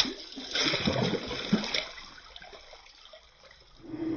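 Water splashing and sloshing in a round ice-fishing hole as a pike is slid head-first back down it. The splashing starts suddenly, is loudest in the first two seconds, then dies away.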